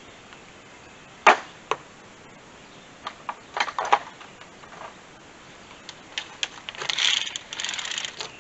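Hand tools being handled while parts are tightened: scattered sharp clicks and knocks, then a stretch of rapid clicking about seven seconds in.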